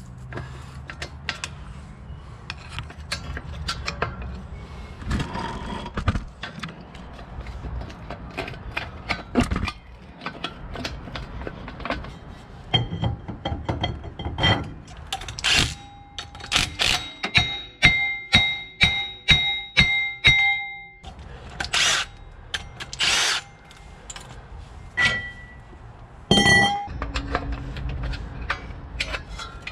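Metal-on-metal knocks and clanks as a Suzuki Vitara rear axle is worked loose at the brake drum and hub. Near the middle comes a run of about ten ringing metal strikes, two a second, with a clear ringing tone after each. The axle is stuck in its silicone-sealed housing.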